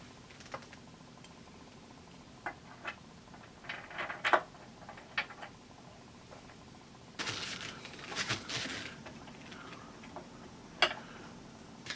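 Small metal parts clicking and knocking as a tail-lamp bracket and its bolts are handled and fitted to a motorcycle's rear fender, with scattered light clicks and a longer stretch of rustling and scraping from about seven seconds in.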